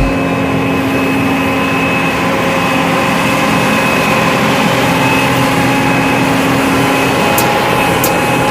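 An engine or machine running steadily at close range, with a constant whine of several fixed tones over a rushing noise.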